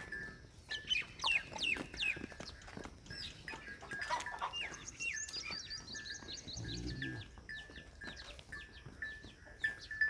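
Small birds chirping busily, with many quick falling chirps and a repeated high note. A short, low livestock call sounds once about seven seconds in.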